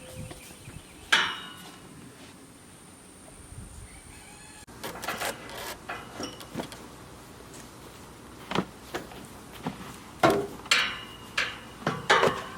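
Hammer blows: irregular sharp knocks with a short ringing tail, one about a second in and a run of them in the last few seconds.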